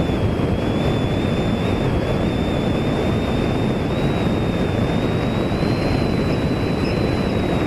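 Steady noise of jet aircraft engines with a thin high whine that wavers slightly in pitch, mixed with strong wind on the microphone.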